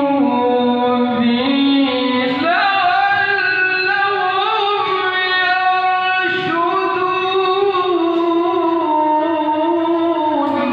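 A male qori reciting the Quran in a drawn-out melodic style, holding long notes and winding through ornamented runs, with a brief break about six seconds in. The voice is heard through a microphone and loudspeaker.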